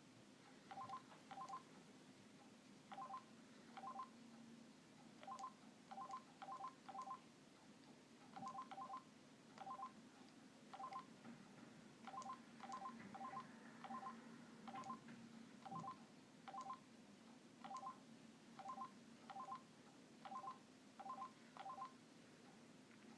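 Keypad tones of a Mitsubishi Trium Astral mobile phone: short two-tone beeps as keys are pressed, about thirty of them, singly and in quick runs of two to four. A faint steady hum sits underneath.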